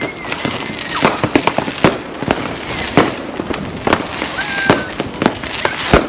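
Fireworks going off: a dense, uneven string of firecracker and shell bangs, near and far, with whistling fireworks giving short, slightly falling whistles near the start and again about four and a half seconds in.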